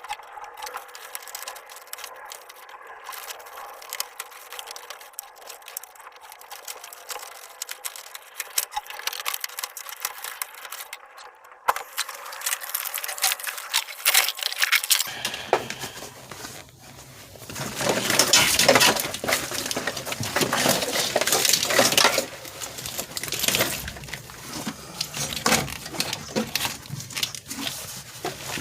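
Hand work on a car's wiring: light clicks and clinks of tools and small metal parts. About halfway through, louder rustling and scraping starts, strongest a few seconds later.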